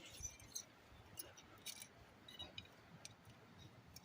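Faint, scattered metallic clicks and clinks of drum brake hardware (shoes, adjuster and springs) being handled, against near silence.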